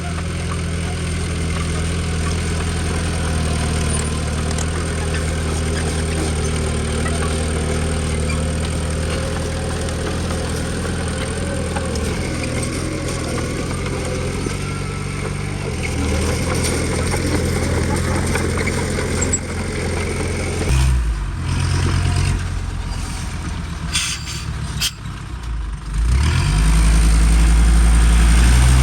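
Heavy machine's diesel engine running steadily throughout. About three-quarters of the way in its note shifts and drops back, with a few sharp clicks. Near the end it comes back louder and deeper, as if taking on load.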